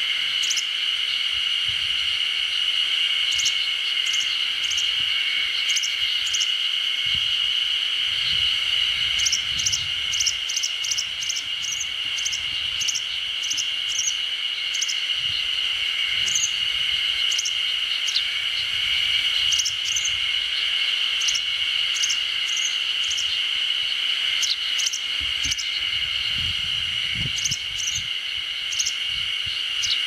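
A steady, dense insect chorus with a high buzzing drone, and many short, high bird chirps scattered over it.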